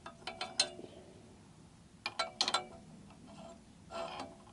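Light metallic clicks and clinks of a small metal part being handled against a motorcycle's exhaust header pipes. They come in three short clusters: just after the start, about two seconds in, and near the end.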